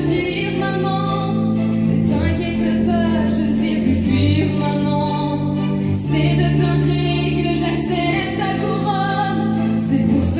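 A musical-theatre ensemble number: many voices singing together over held bass notes that change every second or two.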